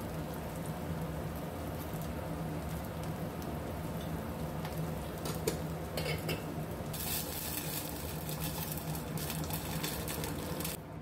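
Sweet corn and onion sizzling in oil in a stainless steel pot, with a few clicks around the middle. From about seven seconds in a louder hiss takes over as water is poured into the hot pot, then cuts off suddenly just before the end.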